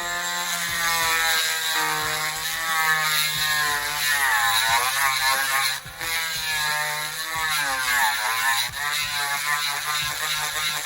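Handheld rotary tool with a rounded burr running, grinding out the plastic of an action figure's peg socket to widen it. Its whine sags in pitch and recovers several times as the burr bites into the plastic, with a brief drop just before the middle.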